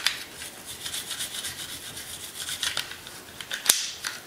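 Toothbrush bristles scrubbing solvent through the rails and inner parts of a pistol frame: quick back-and-forth scratchy strokes. A sharp click about three and a half seconds in.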